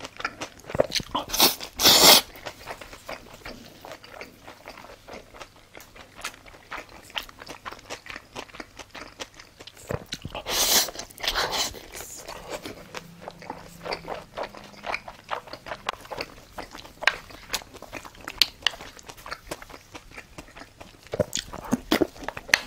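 Close-miked eating: wet chewing and biting of raw beef yukhoe in gochujang sauce, many quick small mouth clicks, with two louder bursts about two seconds and about eleven seconds in.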